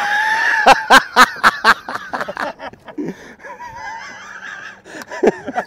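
A man's drawn-out excited shout running into a quick burst of laughter. Then quieter, indistinct voices.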